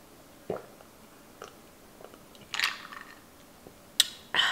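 Small swallowing and mouth sounds as ice water is drunk from a glass, then a sharp clink of ice cubes in the glass near the end, followed at once by a loud breathy exhale.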